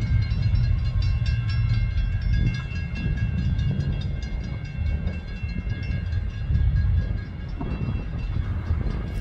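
A train moving on the yard tracks: a steady low rumble with several high, steady tones over it and a fast, even clicking.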